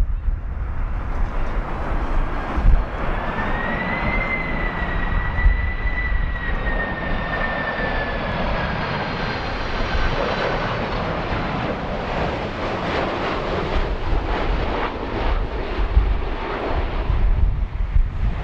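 Twin-engine jet airliner passing low overhead on approach to land: a steady rush of engine noise with a high fan whine that drifts slowly down in pitch as it goes by. Strong wind buffets the microphone.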